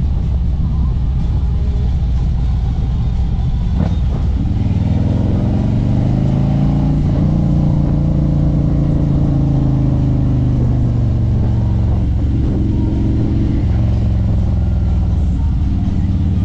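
Harley-Davidson Street Glide's V-twin engine running under way, with a steady low rumble and wind noise. About four seconds in, its pitch climbs as the bike pulls harder, then holds, and shifts again a few seconds before the end.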